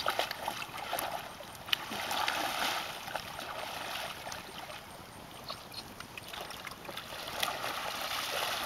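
Water sloshing and splashing as a horse wades chest-deep through a pond with a rider on its back, moving out into deeper water.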